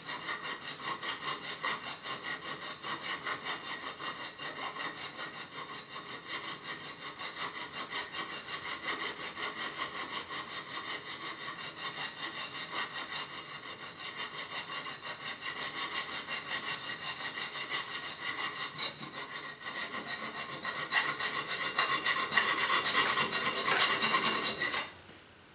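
Hand file scraping back and forth in a quick, even rhythm, filing a channel in a metal part so that a rail will sit in it. The strokes get louder a few seconds before the end, then stop abruptly.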